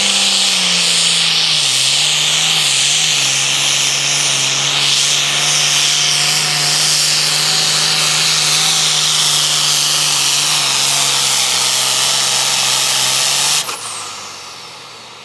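Super Farm class diesel pulling tractor run at full throttle under load while dragging the sled, with a high whine over the engine note. The pitch sags slightly over the first two seconds, then holds steady. It cuts off suddenly near the end as the tractor stops and the throttle comes off.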